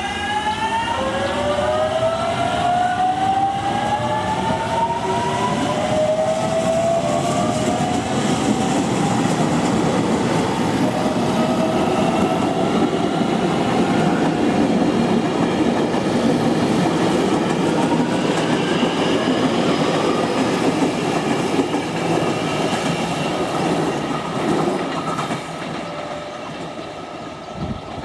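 JR Kyushu 813 series electric train pulling away and gathering speed. Its inverter-driven traction motors whine in several tones that dip, then rise in pitch over about ten seconds, with the wheels running over the rails beneath. The sound fades a few seconds before the end.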